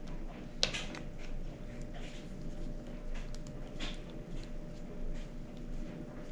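Faint clicks and clinks of small engine bolts and hand tools being handled, with a sharp click about half a second in and another near four seconds, over a steady hum.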